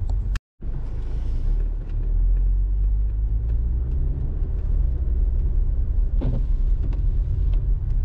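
Car driving on snowy roads: a steady low rumble of engine and tyres. The sound cuts out to silence for a moment about half a second in, and there is a short louder swell a little past six seconds.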